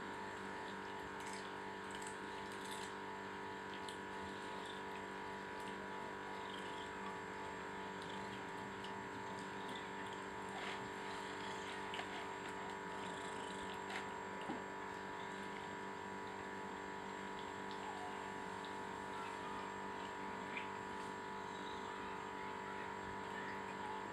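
Abyssinian cats eating tuna and cabbage from a stainless steel bowl: faint chewing and licking clicks, with a few sharper ticks around the middle, over a steady hum of several constant tones.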